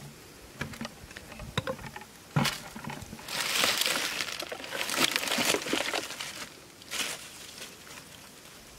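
Dry, crumbly mud and dead leaves rustling and crackling as they are handled and broken, with a single knock about two and a half seconds in.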